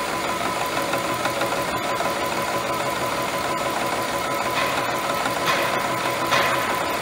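Vertical milling machine running, its face mill cutting a cold-rolled steel block, with a steady whine over the cutting noise and a few brief swells of brighter noise about two-thirds of the way through.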